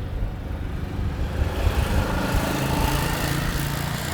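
A small engine running, with a low rumble and a pitched hum that grows louder and brighter about halfway through.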